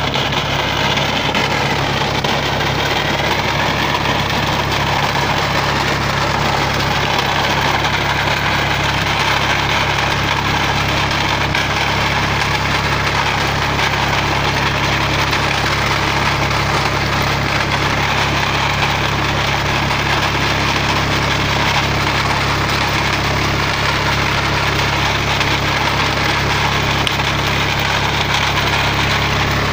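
Captain mini tractor's engine running steadily under load, with the front-mounted reaper's cutter bar working through dry crop stalks and adding a continuous mechanical clatter.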